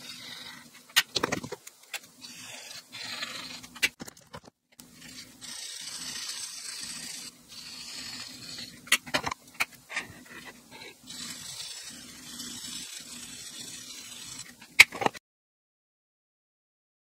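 Felt tip of an alcohol marker rubbing and scratching across paper in spells of strokes, with a few sharp clicks of marker barrels and caps. The sound cuts off to silence about two seconds before the end.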